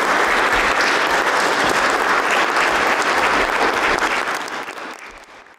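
Audience applauding, which fades out near the end.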